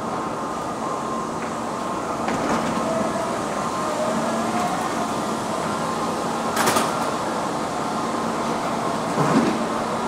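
Metro station elevator running: a steady mechanical hum with a slowly rising whine, and two brief clanks, the louder one about two-thirds of the way in and the other near the end.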